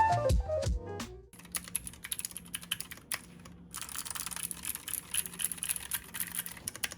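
Mechanical keyboard fitted with clicky Outemu Blue switches being typed on, a quick, irregular run of sharp clicks with a short pause about three seconds in. A short run of falling music notes ends about a second in, before the typing starts.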